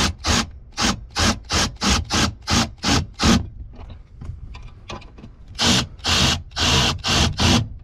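Hand socket ratchet on an extension clicking in quick back-and-forth strokes, about four a second, as a small bolt is run in. After a short lull with faint ticks, three slower, longer strokes come near the end.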